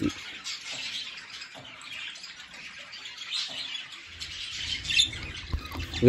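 Budgerigars chattering and chirping, a continuous high twittering, with a faint low rumble coming in about four seconds in.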